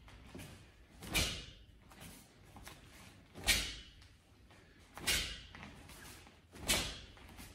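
Four sharp, hissing snaps, each with a low thud, from a taekwondo practitioner performing the moves of a pattern: the uniform snapping and bare feet landing on foam mats with each technique, about one and a half to two seconds apart, the second one loudest.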